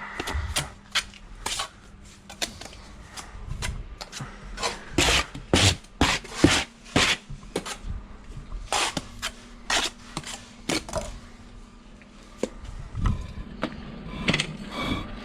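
Bricklaying trowel work: irregular scrapes and knocks of a trowel on mortar and concrete blocks, with a faint steady low hum underneath.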